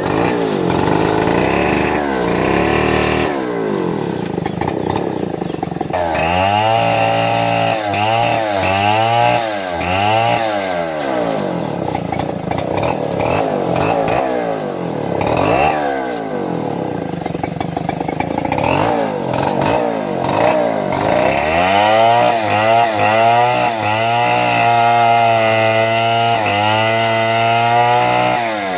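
Chainsaw running, its engine pitch rising and falling again and again as the throttle is opened and let off, with stretches held at high revs.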